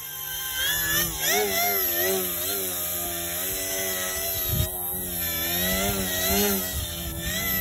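Electric motor and propeller of a 39-inch Super Extra foam 3D RC plane hovering close by, a whine that keeps rising and falling in pitch as the throttle is worked.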